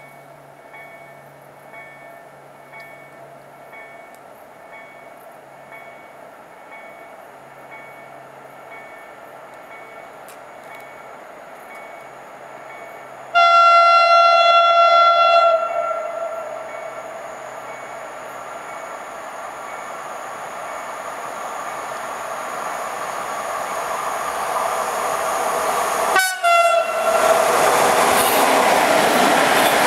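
PKP Cargo ET22 electric locomotive hauling a freight train toward the listener: faint at first, then its horn sounds once for about two seconds as a greeting. The train's rumble builds steadily until the locomotive passes close by with a sudden rush about 26 seconds in, followed by the loud running of the open freight wagons over the rails.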